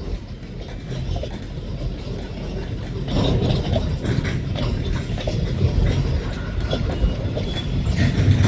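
Freight train cars rolling past with a steady rumble, their steel wheels clicking over rail joints; it gets louder about three seconds in.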